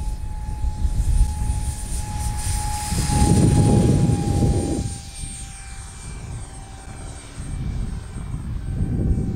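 Twin 50 mm electric ducted fans of an RC Boeing 737 model running with a steady high whine during the takeoff. A louder low rushing noise swells for a couple of seconds about three seconds in.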